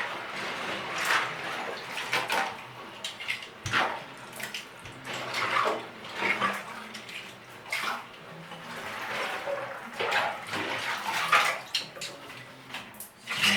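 Hands rummaging through a tub of soaking water to fish out Lego pieces, the water sloshing and splashing in uneven bursts.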